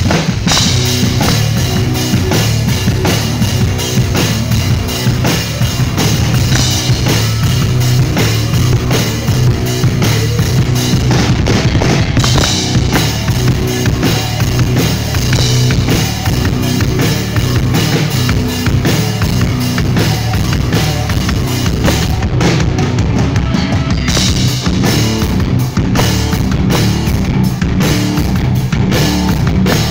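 Rock band playing loud and live through stage amplifiers: a drum kit with bass drum and snare, bass guitar and electric guitar.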